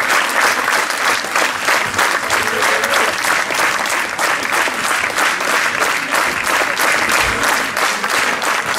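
Audience applauding: dense, continuous clapping at an even level, with no break.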